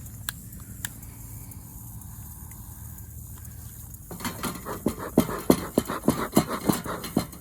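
Bellows of a beekeeper's smoker pumped rapidly, puffing air about three times a second to get the fuel burning, starting about four seconds in after a stretch of faint background with two small clicks.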